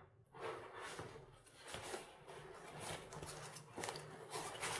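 Rustling of a nylon fishing bag being handled, with scattered small clicks and scrapes as its main zippered compartment is opened.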